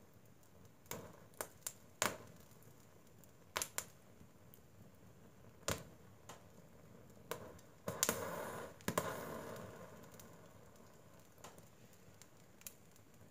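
Wood fire of logs and pine cones burning in an open stove, crackling with scattered sharp pops. About eight seconds in comes a denser flurry of crackling with a hiss that fades over a couple of seconds.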